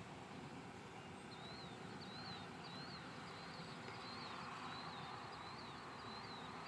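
A small bird repeating a short chirping note about twice a second, starting about a second in, faint over a steady background hiss.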